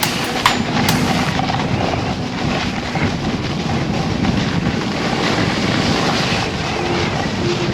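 Steady rushing noise of a snowboard sliding over snow at speed, with wind buffeting the microphone.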